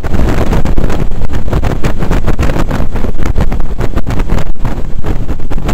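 Loud, irregular wind buffeting on the microphone of a camera riding on a motorcycle at road speed, over the rumble of the bike's engine and tyres.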